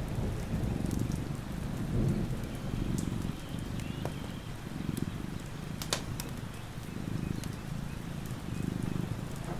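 A sleeping cat purring in slow swells about once a second, over steady rain with scattered sharp drip ticks.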